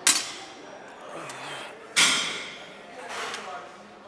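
Loaded barbell clanking during clean and press reps: three sharp metallic clanks about two seconds apart, with faint voices behind.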